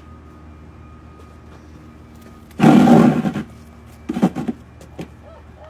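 A dog gives a loud, rough growling vocalization lasting under a second, then a shorter second one about a second later.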